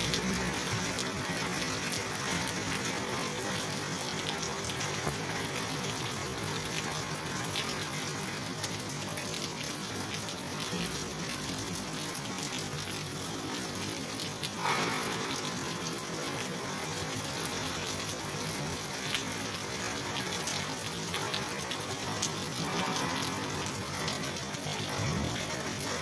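Steady rain falling, an even hiss throughout, with one brief sharper noise just over halfway through.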